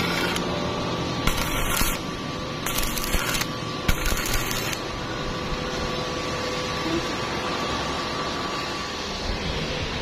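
Stick-welding arc on thin galvanized square tube, crackling in four short bursts under a second each in the first five seconds as the arc is struck and broken again and again, then stopping. A steady noisy hum with a faint whine carries on underneath.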